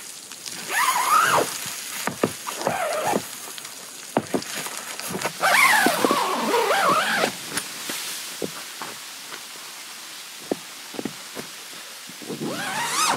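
Canvas tent door zipper being pulled open and shut several times, each pull a wavering zip whose pitch follows the pull, the last one rising near the end. Between the pulls, scattered knocks and crunches of footsteps in snow and tent fabric being handled.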